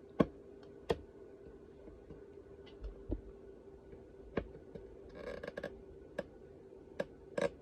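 Small sharp clicks and taps of metal tweezers and a soldering iron against a circuit board while a switch is being desoldered, spaced a second or several apart, the loudest just after the start, with a brief rustle about five seconds in. A faint steady hum runs underneath.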